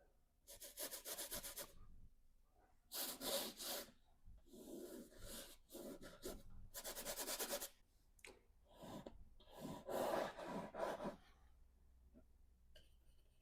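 Paintbrush scrubbing oil paint onto canvas in a series of short strokes, each about a second long, with brief pauses between them.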